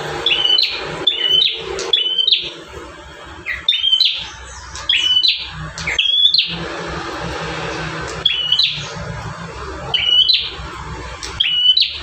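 Prenjak tamu, a small tailorbird, singing: loud, sharp chirps repeated in quick runs of three to five, with short pauses between the runs.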